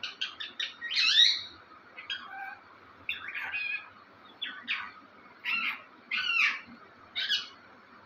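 Caged green parakeet calling: a quick run of four short, high calls, then a longer, louder one about a second in, followed by single calls roughly once a second.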